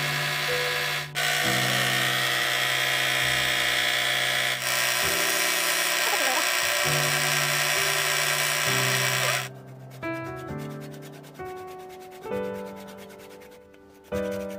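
Wood lathe turning a wooden cup: a loud, steady scraping hiss of the wood being worked as it spins, which stops suddenly about nine and a half seconds in. Background music with slow piano-like notes plays throughout and is left alone after the hiss stops.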